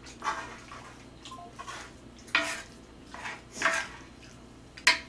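Wooden spatula scraping and stirring fried rice across an electric griddle pan, in about four short strokes spaced a second or so apart.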